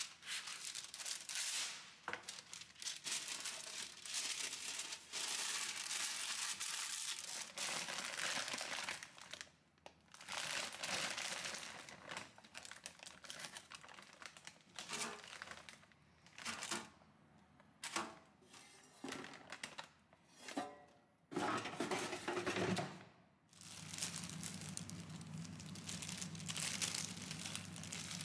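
Crinkling and rustling of plastic packaging being handled and torn open in irregular bursts with short pauses. A steady low hum comes in under it about three-quarters of the way through.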